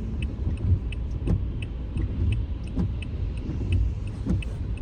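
Car turn-signal indicator clicking steadily, about three clicks a second, over the low rumble of the car driving on a snowy road, heard from inside the cabin. A soft sweep recurs about every second and a half.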